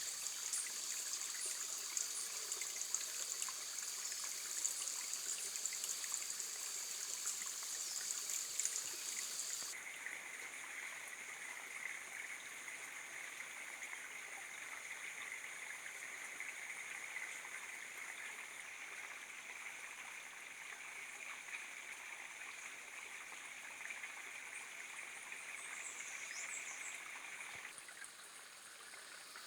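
Outdoor nature ambience: a steady high hiss that changes character abruptly about ten seconds in and again near the end, with a few faint short high chirps shortly before the end.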